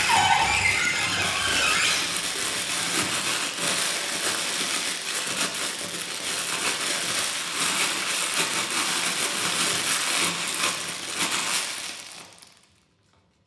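Dense crackling, scratching noise texture in a contemporary chamber piece, with traces of bowed-string tone at the start; it fades away about twelve seconds in to near silence.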